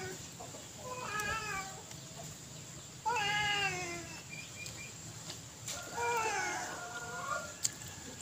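A domestic cat meowing three times, the second call the loudest and the third the longest.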